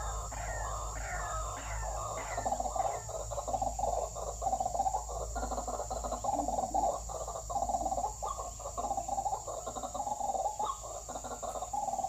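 White-breasted waterhens (ruak-ruak) calling: a dense, unbroken run of repeated call notes, a few each second, over a steady high-pitched tone.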